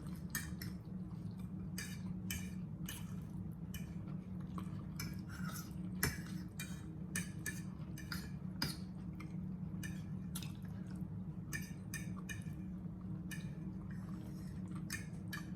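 Eating at a table: frequent short clicks and clinks of cutlery on dishes, mixed with chewing, over a steady low hum.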